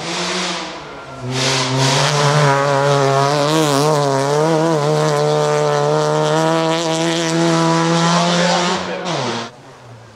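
Ford Focus rally car's engine held at high revs as it slides through a gravel corner, the revs wavering slightly mid-corner, over a hiss of tyres on loose gravel. About nine seconds in the pitch drops sharply and the sound cuts off, and a short burst of car noise comes right at the start.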